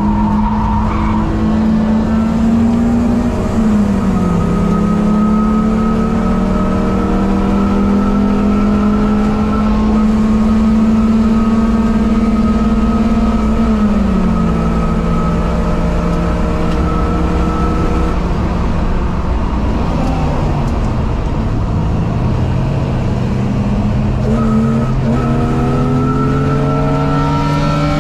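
Race car's engine heard from inside the cabin at full throttle, its pitch climbing slowly through long pulls in each gear and dropping at gear changes about three and a half and fourteen seconds in. Around twenty seconds in the revs fall away as the throttle is lifted, then climb again toward the end.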